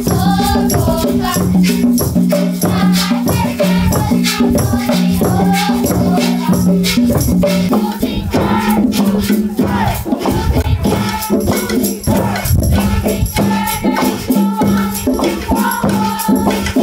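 Folk music from a children's performance: voices singing over hand drums and shaken rattles, with a steady held low note underneath.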